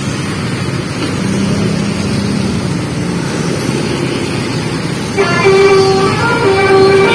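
A bus's steady engine and road noise, then about five seconds in a basuri telolet musical horn starts playing a melody of several held notes.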